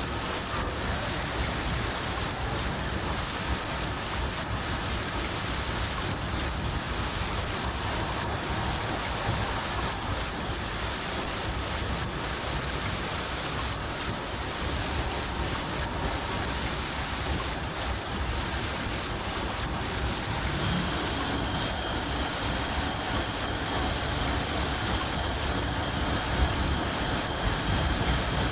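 A cricket chirping steadily, about two to three chirps a second, over a continuous patter of rain. About two-thirds of the way through, a second, fainter steady trill joins in.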